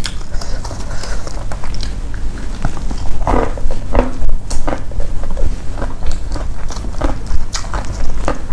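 Chewing and biting crispy fried fish, with many irregular short crunches over a steady low hum.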